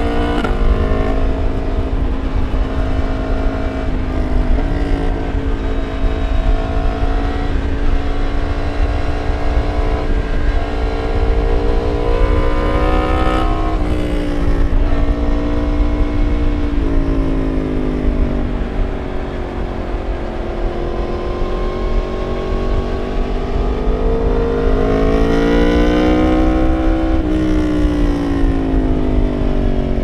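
2019 Yamaha MT-10's crossplane inline-four engine running under way with its catalytic converter deleted, heard from the rider's seat with wind noise. Its pitch mostly holds steady with small steps. It rises and falls several times, climbing for a few seconds late on and then dropping sharply at a gear change.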